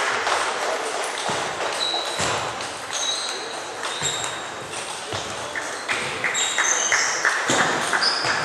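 Table tennis rally: the celluloid ball clicking sharply off bats and table in quick succession, ringing in a large sports hall, with more ball clicks and voices from the other tables behind it. In the second half comes a run of evenly spaced clicks.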